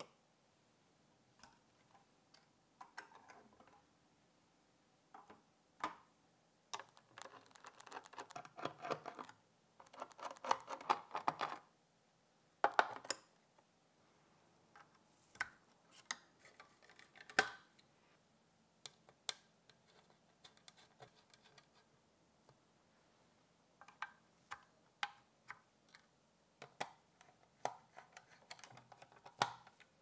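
Handling noise of PC parts on a motherboard: scattered small clicks, taps and scrapes from a precision screwdriver and M.2 SSDs being fitted into their slots, with a longer stretch of scraping and rustling in the first half.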